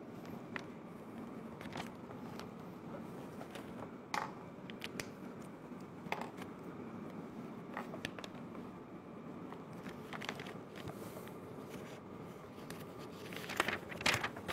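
Scattered small scratches and taps from a marker on a whiteboard and from handling papers, over steady room hiss, with a cluster of louder scratchy strokes near the end.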